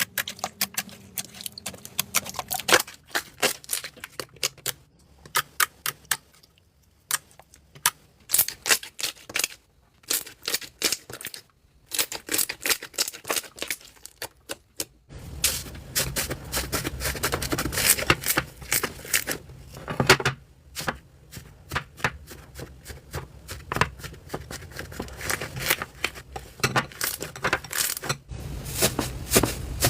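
Slime handled by hand, giving quick sticky clicks, pops and crackles in dense runs with short pauses. About halfway through the sound becomes fuller, with a steadier low background under the clicking.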